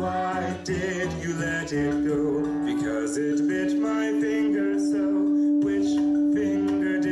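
Sung children's nursery-rhyme music, a voice singing a melody over one steady held tone that runs beneath it.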